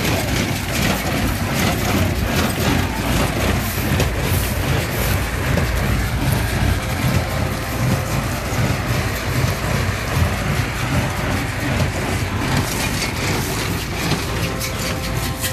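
Ursus tractor engine running steadily under load while driving a Sipma Z224 small square baler, with the baler's pick-up and plunger clattering and knocking as they pack straw into bales.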